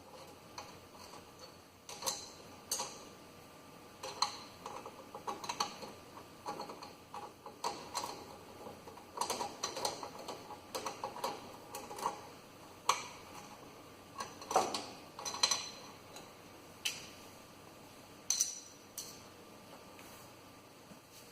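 A hand screwdriver backing out the small screws of a Duplo 660 guillotine paper cutter's main power switch housing, and the screws being handled: irregular light clicks and clinks, in quick clusters at times, with pauses between.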